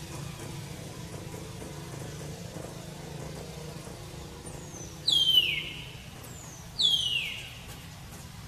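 A baby monkey crying: two loud, high-pitched cries that fall in pitch, about two seconds apart in the second half, over a steady low hum.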